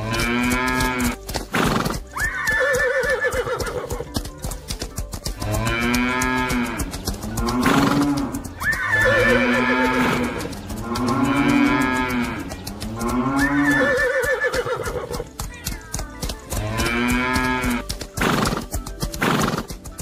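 Cartoon stampede sound effects: about a dozen drawn-out animal calls, each about a second long and rising then falling in pitch, over a rapid clatter of galloping hooves and background music. A few loud, short noisy hits break in, two of them near the end.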